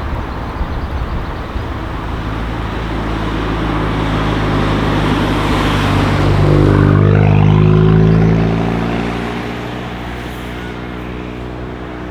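A car's engine and exhaust grow louder over several seconds, reaching a steady low engine note that is loudest about two thirds of the way through, then fade away again into a background rumble of traffic.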